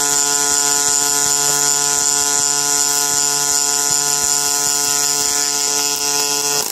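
Robot-held MIG welding torch with its arc burning steadily: a loud, even high-pitched hiss with a steady hum under it as the bead is laid. The sound cuts off abruptly at the very end when the arc is stopped.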